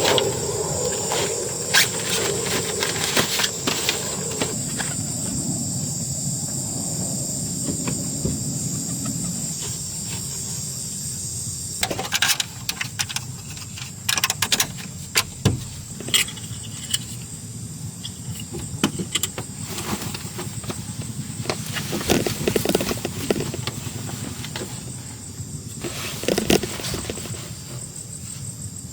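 Insects chirring steadily on a high pitch, with scattered clicks and knocks through it, several close together in the middle and again near the end.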